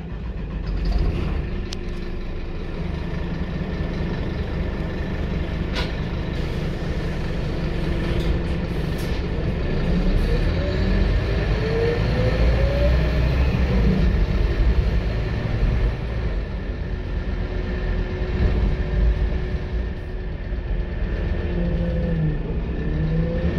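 Scania K230UB single-deck bus's diesel engine pulling hard under acceleration, heard inside the passenger cabin. A whine rises in pitch about halfway through and again near the end.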